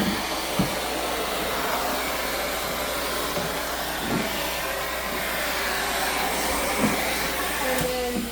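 Central vacuum cleaner hose and floor wand running, a steady rushing suction noise, with a few light knocks as the wand moves; the noise drops away near the end.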